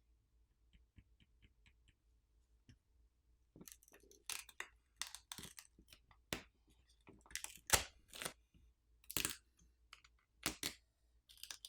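Irregular small clicks and scrapes of a teardown tool and fingers working on a smartphone's mid-frame as a flex cable is peeled back, starting a few seconds in.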